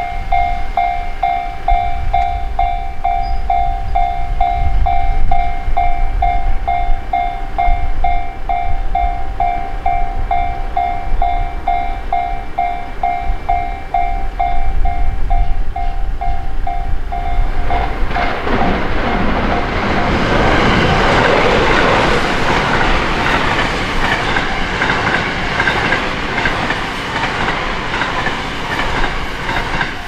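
Japanese level-crossing alarm bell ringing steadily at about two strokes a second, then from about 18 seconds in a passing JR Kyoto Line train's wheel and rail noise rises loud and drowns out the bell.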